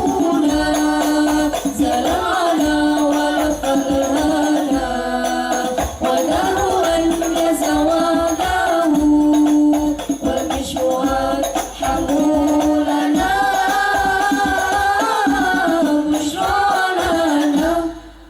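Hadrah Banjari ensemble: voices singing sholawat over rebana frame drums. The music stops abruptly near the end.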